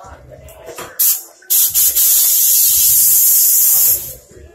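A spray hissing close by: a short spurt about a second in, then a long steady spray of about two and a half seconds that stops suddenly.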